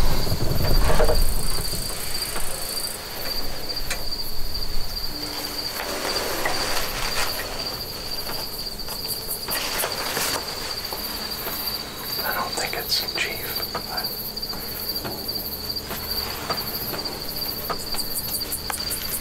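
Evening insect chorus of crickets, one continuous high-pitched trill held steady throughout, with a few faint rustles and clicks.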